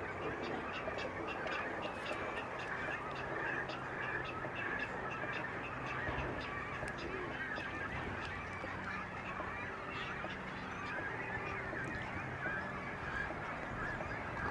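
A steady chorus of many waterbirds calling at once from a nesting colony, honking calls among the chatter.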